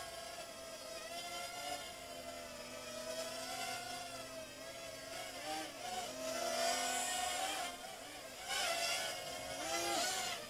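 Mini quadcopter's small electric motors and propellers whining, the pitch wavering up and down as the throttle changes.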